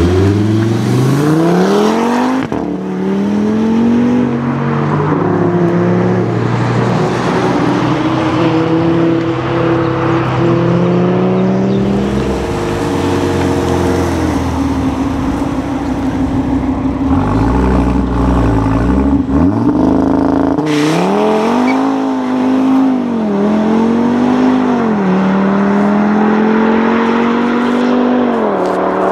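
Audi RS3's turbocharged 2.5-litre five-cylinder through a Milltek exhaust, accelerating hard. Its pitch climbs in steps and drops back at each upshift, with repeated rises and falls in the second half as the car pulls and passes.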